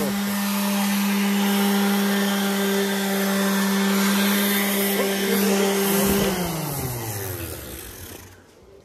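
Milwaukee M18 cordless orbital sander running at a steady speed, pressed against the work with a sanding hiss. About six seconds in it is switched off and its hum falls in pitch as the pad spins down to a stop.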